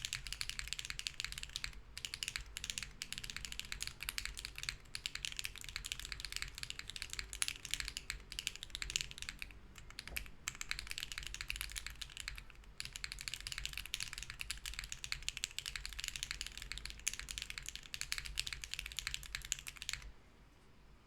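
Fast continuous typing on a Hera R2 mechanical keyboard with BSUN Bunny switches in a POM plate and no foam, a dense run of keystroke clicks with a few short pauses; it stops about a second before the end. A steady low hum runs underneath.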